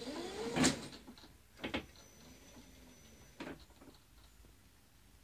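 Electric drive motor of a home-built Toylander ride-on car, run by a custom motor controller under radio throttle, whining up and back down in pitch, with a fainter second whine a little later. Sharp clunks come about half a second in, near two seconds and near three and a half seconds.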